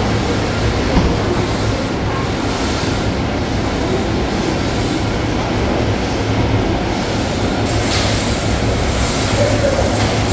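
Seafood processing line running: a stainless roller-chain conveyor carrying plastic crates into a cooking tunnel, a loud, steady mechanical din with a low hum and a single knock about a second in.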